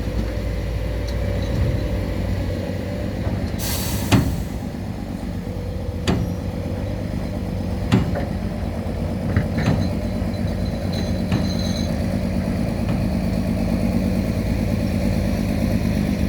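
Excavator's diesel engine running steadily, with a short hiss about four seconds in and several sharp knocks through the middle.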